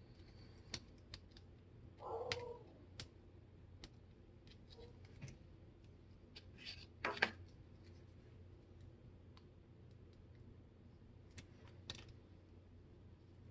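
Small metal parts and hand tools clicking and tapping as a pneumatic framing nailer is worked on by hand during an O-ring rebuild. There is a short scrape about two seconds in and a louder knock about seven seconds in.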